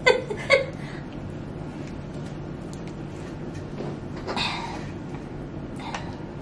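Two women laughing in a few short bursts at the start, then a low steady hum with a brief soft crackle about four seconds in as a cooked king crab leg's shell is pulled apart to draw the meat out.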